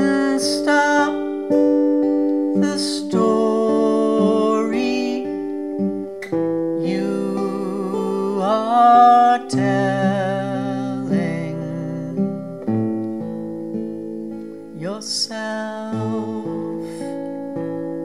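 A woman singing in several phrases over her own acoustic guitar, which plays on steadily between the sung lines.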